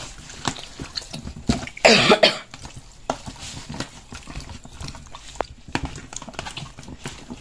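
Hands massaging seasoned raw chicken in a plastic tub: irregular wet squelches and slaps of skin on meat, with a louder burst about two seconds in.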